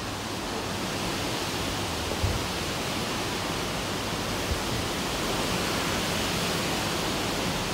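Strong wind: a steady rushing noise of wind on the microphone and through the garden foliage, with a low rumble and a couple of soft bumps.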